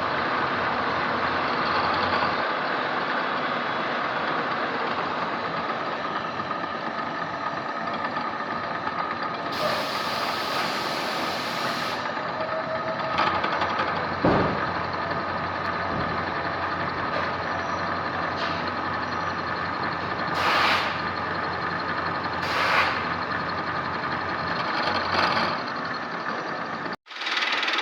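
Manual milling machine running, a steady mechanical noise with a constant whining tone and a few short hissing bursts. The sound cuts out for a moment near the end.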